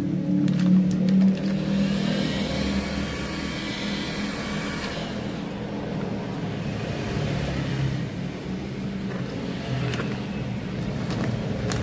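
A motor vehicle engine running, loudest at the start and fading over the first couple of seconds into a steady low drone.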